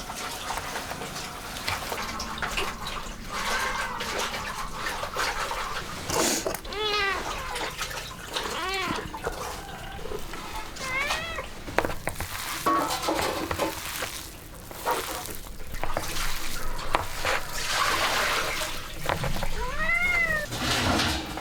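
A domestic cat meowing, four or so drawn-out calls that rise and fall in pitch, over a background of knocks and clatter.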